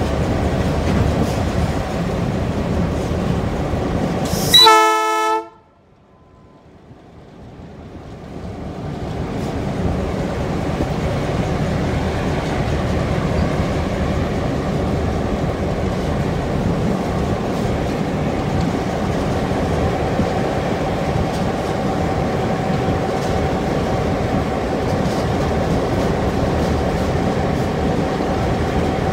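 EMD class 661 'Kenedi' diesel-electric locomotive under way with a freight train, its engine and wheels on the rails running steadily. About four and a half seconds in it sounds a short, loud horn blast; right after, the sound drops out sharply and swells back over several seconds.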